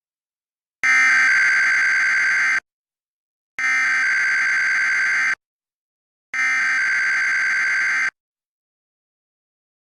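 Emergency Alert System SAME header: three identical bursts of harsh digital data buzzing, each about two seconds long, about a second apart.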